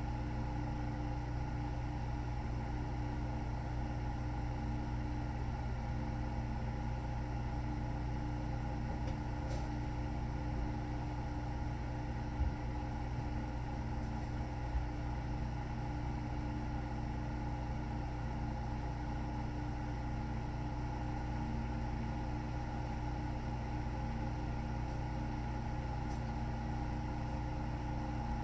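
Steady, unchanging machine hum with a few held tones, with two small faint knocks around the middle. No rise and fall of snoring breaths is heard.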